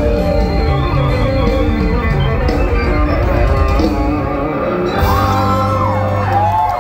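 Loud live band music from a mor lam stage show: a heavy bass and drum beat under electric keyboard. About five seconds in the beat drops out, leaving held notes with a few sliding pitches.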